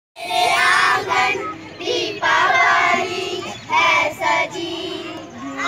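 A group of young girls singing together in phrases.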